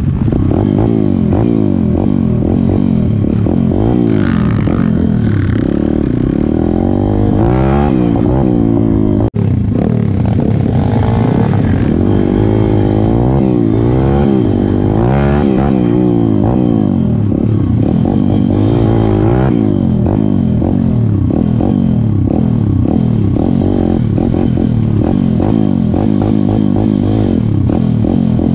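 Single-cylinder 140 cc pit bike engine being ridden, its revs rising and falling again and again as the throttle is worked. The sound cuts out for an instant about nine seconds in.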